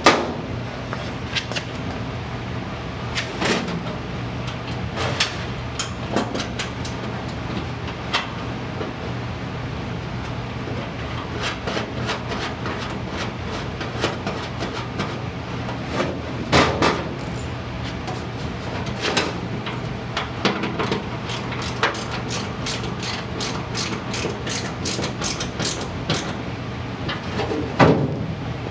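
Hand tools and small metal hardware clinking and knocking as parts are bolted in, with a fast run of clicks near the end, over a steady low hum.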